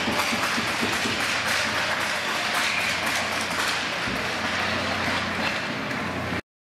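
Crowd hubbub of many indistinct voices with scattered sharp taps and claps through it, cutting off suddenly a little past six seconds in.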